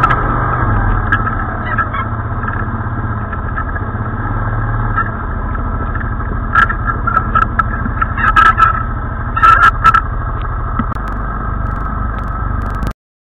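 ATV (quad) engine running as the machine drives over a snowy forest track, with several sharp knocks and rattles from about six to ten seconds in. The sound cuts off abruptly near the end.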